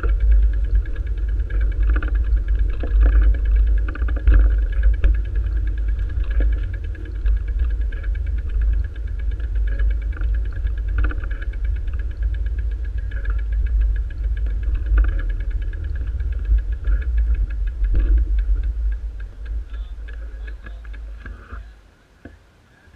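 Wind rumbling over the microphone of a moving camera, with a fast, steady ticking running through it. Both fall away sharply near the end as the camera comes to a stop.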